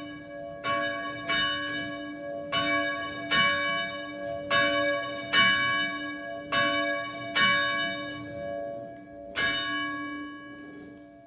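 A single church bell ringing, struck about ten times at uneven intervals, each strike ringing on under the next. The last strike comes after a longer pause and is left to ring out.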